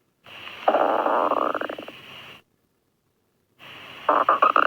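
Stomach growling: two loud, gurgling growls made of rapid pulses, each starting over a faint hiss and cut off into dead silence. The second growl, near the end, is choppier than the first.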